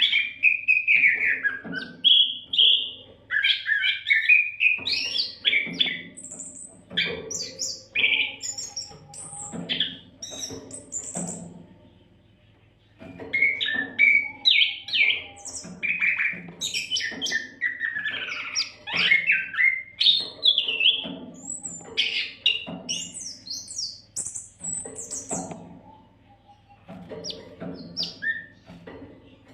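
Oriental magpie-robin (kacer) singing a fast, varied song of whistles, chirps and harsh notes with hardly a break, pausing briefly about twelve seconds in.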